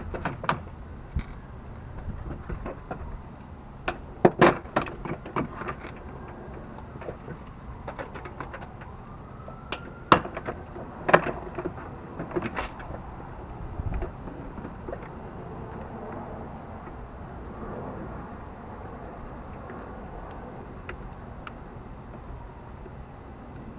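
Hand work on a car's interior door panel: scattered clicks, knocks and plastic rattles as fasteners and trim are worked loose. The sharpest knocks cluster about four seconds in and again around ten to thirteen seconds in, and the handling is quieter toward the end.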